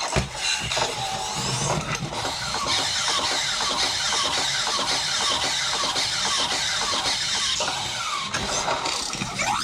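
Robosen Optimus Prime robot toy's servo motors whirring as it moves, a quick series of short falling whines, about two to three a second, over a steady mechanical noise.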